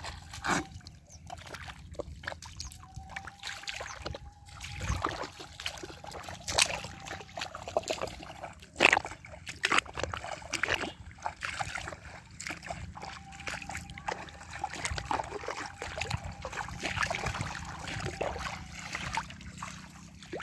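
Wading footsteps through shallow, muddy pond water: irregular splashes and sloshes as feet push through the water and pull out of the mud.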